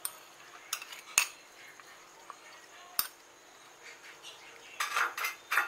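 A steel spoon clinking against a glass bowl and plate while sprouted lentils are scraped out and spread: a few separate sharp clinks, then a short cluster of clatter near the end.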